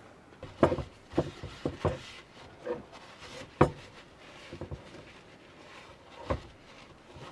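Handling clatter from a small THANKO bento-box rice cooker and its non-stick inner pot on a wooden shelf: several sharp knocks, the loudest about three and a half seconds in, with a paper towel rubbing the pot between them.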